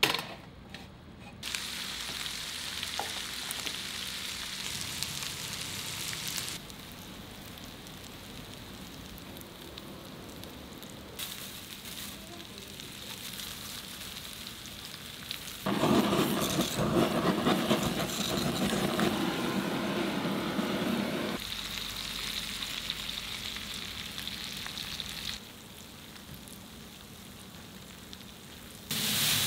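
Pork intestines sizzling as they cook, heard in a run of short clips that cut abruptly from one to the next. For a stretch past the middle the sizzle is louder and fuller.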